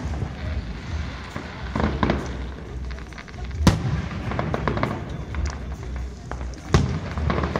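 Aerial firework shells bursting: sharp booms over a steady low rumble, the loudest about halfway through and another strong one near the end, with smaller pops between them.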